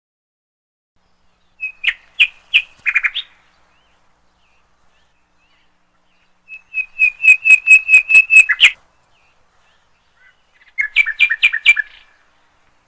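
A bulbul singing three short, rapid phrases of sharp, repeated notes, with pauses between them. The middle phrase is the longest, a fast run of about ten notes.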